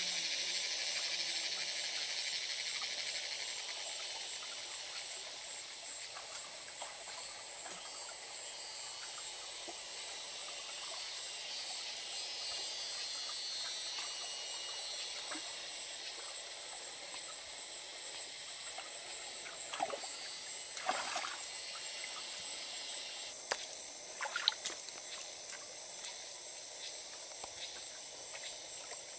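Shallow forest stream trickling over rocks, with a thin steady high whine above it and a few short splashing steps as bare feet wade through the water about two-thirds of the way in.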